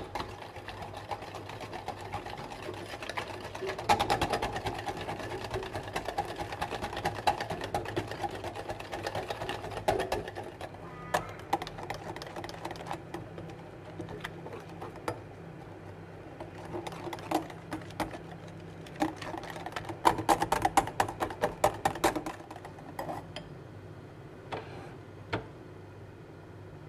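Wire whisk beating egg yolks in a glass bowl over a double boiler, its wires clicking and rattling rapidly against the glass. The beating comes in spells that are busiest about four seconds in and again near twenty seconds in, over a low steady hum.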